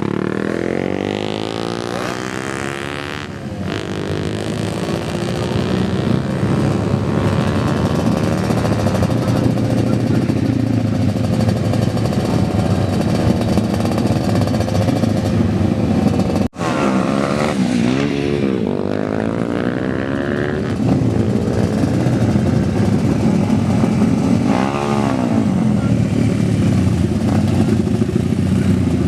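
Modified motorcycle engines with loud open exhausts being revved hard, the pitch repeatedly climbing and falling, held at high revs for long stretches. There is an abrupt break about halfway through, then the revving goes on.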